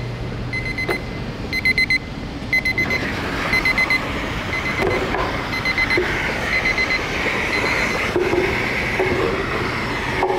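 Electronic beeper sounding in bursts of several rapid high-pitched beeps, about one burst a second, growing fainter toward the end, over steady background noise.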